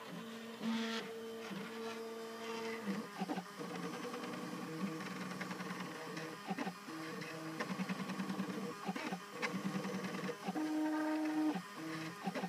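Stepper motors of a home-built Ultimaker-style 3D printer singing as they drive the print head through its moves, the tone jumping from one steady pitch to another with each change of speed and direction, with short clicks between moves.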